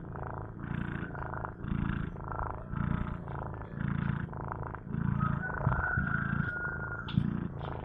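Domestic cat snoring in its sleep: a rasping rattle on each breath, about one breath a second. A thin whistling note runs through the breaths for a second or so past the middle.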